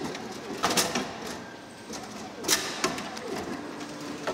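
A few sharp knocks and clunks from a Royal RVV 500 bottle vending machine's delivery port as a plastic soda bottle arrives and is taken out by hand.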